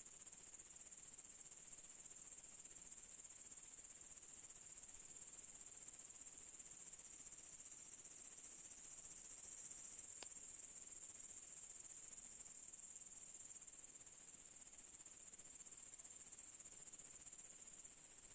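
Crickets chirring in a dense, steady, high-pitched chorus, with a single faint click about ten seconds in.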